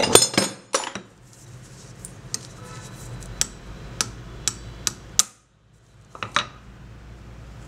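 Light hammer taps on steel, driving the threaded pivot screw out of a pair of old scissors resting on a steel cylinder. A quick burst of metallic strikes comes at the start, then single taps about every half second, and two more near the end.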